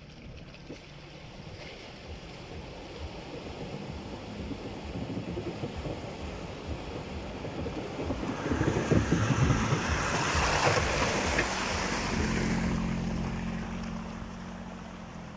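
An off-road 4x4 driving through a forest puddle, its engine running as water splashes and churns. The sound builds to its loudest about two-thirds of the way in, then eases into a steadier engine hum.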